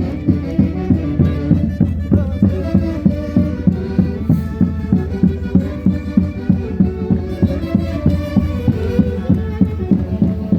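Andean folk orchestra playing traditional music, a bowed-string melody over a steady drum beat of about two beats a second.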